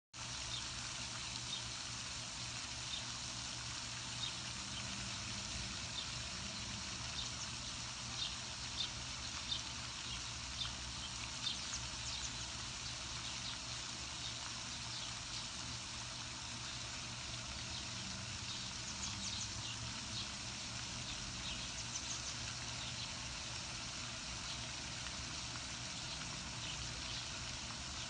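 Outdoor ambience: many short, high-pitched bird chirps or peeps scattered over a steady low rumble.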